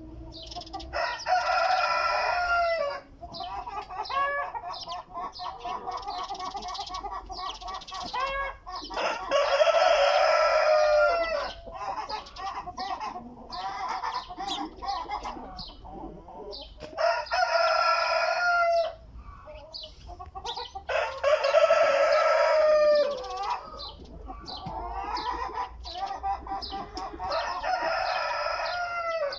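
Rooster crowing, five long loud crows several seconds apart, with chickens clucking in between.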